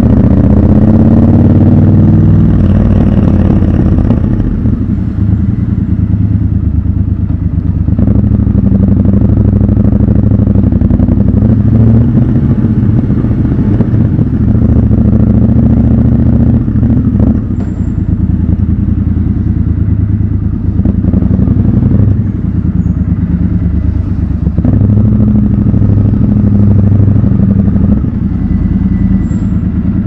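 Triumph Scrambler 1200 XC's 1200 cc parallel-twin engine running at low revs as the bike rolls slowly through an underground car park, with a brief rise in revs in the first couple of seconds. A few short knocks sound along the way.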